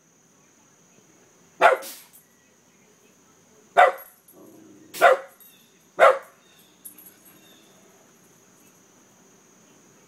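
Shetland sheepdog barking: four loud, sharp barks about a second or two apart, then it stops, with a faint steady high whine underneath.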